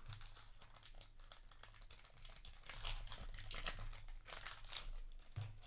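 A foil trading-card booster pack wrapper being torn open and crinkled by hand, with irregular crackling rustles that are busiest in the second half.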